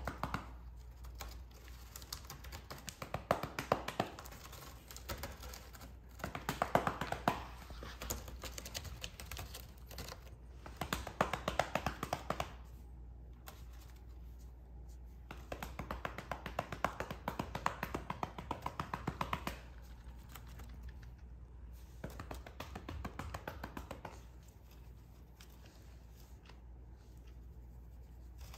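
A hand patting a cat's rump in runs of quick taps, with short pauses between the runs.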